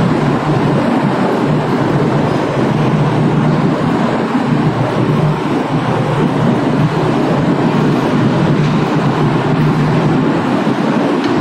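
Passenger train rolling slowly along a station platform, heard from an open coach doorway: a steady rumble of wheels and running gear.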